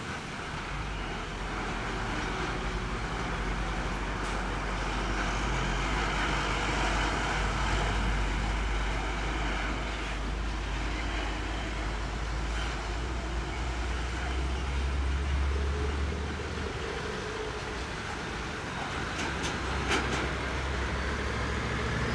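Road traffic passing close by: heavy trucks, cars and motorcycles running along the road, with a steady low engine rumble that grows stronger past the middle. A few sharp ticks come near the end.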